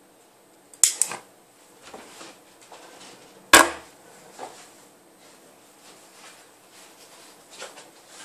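A few sharp knocks and thuds from someone moving about right beside the camera, two close together about a second in and the loudest about three and a half seconds in, with faint rustling between.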